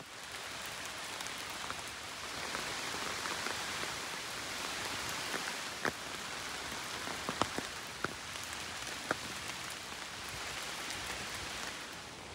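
Hard rain falling as a steady, dense hiss, with a handful of louder single drops ticking through the middle.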